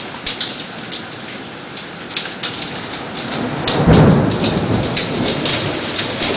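Heavy thunderstorm rain with sharp ticks of hail striking, and a low rumble of thunder that swells a little past halfway and lingers.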